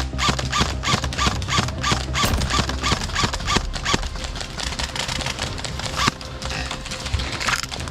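Airsoft gun firing in semi-auto, a steady string of shots about three a second, each a sharp click with a short ring. It slows to a couple of single shots later on.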